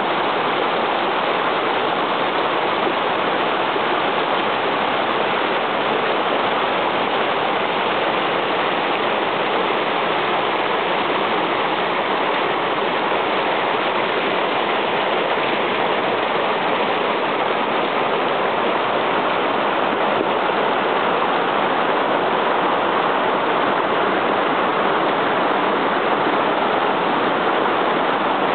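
Forest creek swollen by a winter rain, rushing and splashing steadily over rocks in small cascades.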